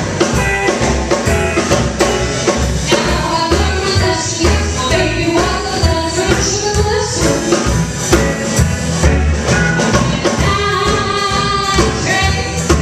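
Live band playing an upbeat number: a woman singing at the microphone over a walking upright double bass and a steady percussion beat.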